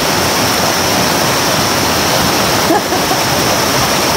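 Rushing water of a rocky mountain stream running over rapids, a steady, fairly loud wash of noise.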